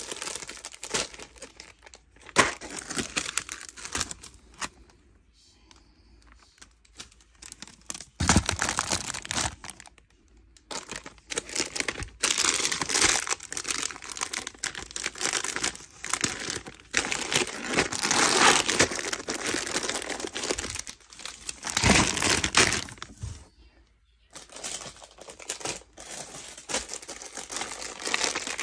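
Plastic candy and snack wrappers crinkling and rustling in irregular bursts as packaged snacks are handled and packed into a cardboard box, with short pauses between handfuls and a couple of dull knocks.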